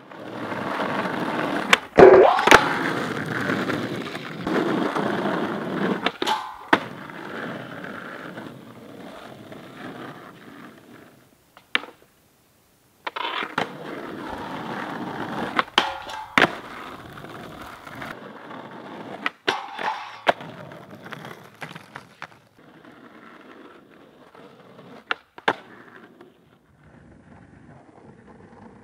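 Skateboard wheels rolling on asphalt, broken by sharp clacks of the tail popping, the board landing, and the trucks hitting and grinding a flat rail. Several separate runs, each with its own roll and clacks, split by a brief silence near the middle.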